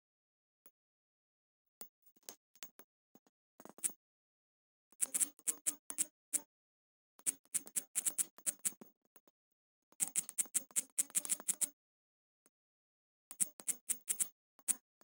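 Rapid clicking of typing on a smartphone's on-screen keyboard, in several quick bursts with short pauses between.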